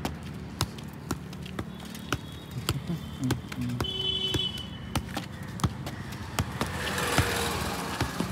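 A football being juggled: the foot strikes the ball in a steady rhythm of short taps, about two a second. Near the end a passing scooter or motorbike grows louder.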